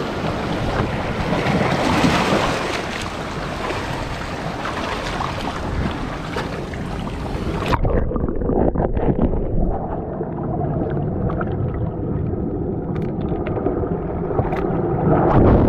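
Sea water surging and splashing over rocks right at the microphone. About eight seconds in, the sound abruptly turns muffled as the camera goes under the water, leaving a dull underwater rush with scattered knocks and clicks.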